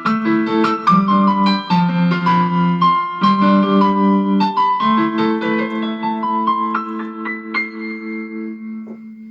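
Electric piano sound from a keyboard playing a chordal melody with a steady bass line, then closing on a long held chord that fades out over the last few seconds.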